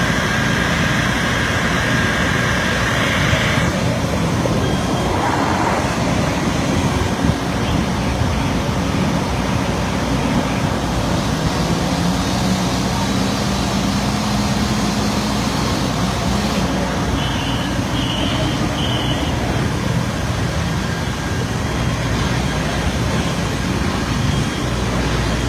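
Fire trucks' diesel engines running steadily, a loud even rumble, with three short high beeps about seventeen seconds in.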